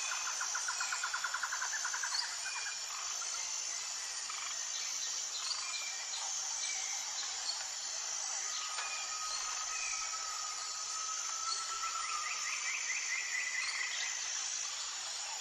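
Jungle ambience: a steady, dense insect drone, with birds and other animals calling over it. A fast pulsed trill plays at the start, a long even whistle runs through the middle, and another rapid trill sounds near the end.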